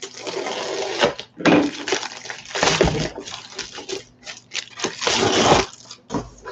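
Plastic bubble mailer crinkling and rustling in several long bursts as a cardboard game box is slid out of it.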